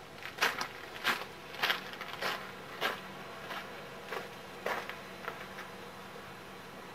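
A run of short, sharp crackling and scraping noises at the firebox of a steam tank locomotive being lit up, about one every half second or so, growing fainter through the second half, over a faint steady hum.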